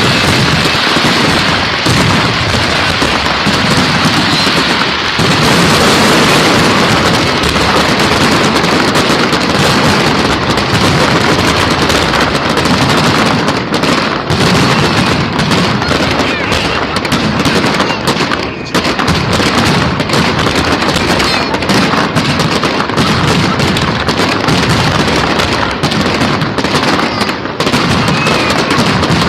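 Homemade firework burning with a loud, continuous hiss and dense crackling, like heavy rain, steady throughout with many sharp pops.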